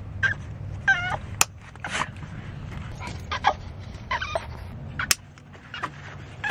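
Boston terrier whining in short, high-pitched squeaks, about four in all, over a low steady hum. Two sharp clicks, about a second and a half and five seconds in, fit the plastic buckles of the dog's life jacket snapping shut.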